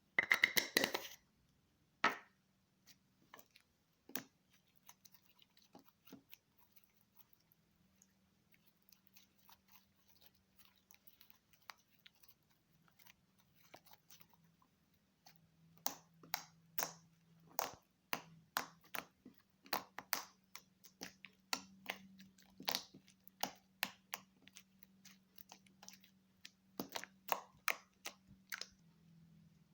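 Slime being squeezed and kneaded by hand, giving short wet clicks and pops: a short dense burst at the start, scattered pops for a while, then a run of them about two a second through the second half. A faint steady hum lies underneath.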